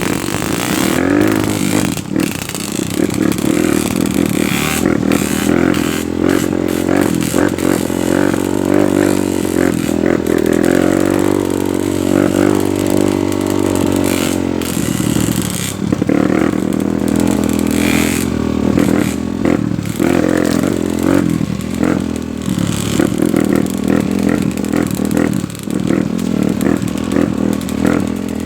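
Off-road trail motorcycle engine running under load, its pitch rising and falling again and again as the throttle is worked, with scattered knocks and rattles.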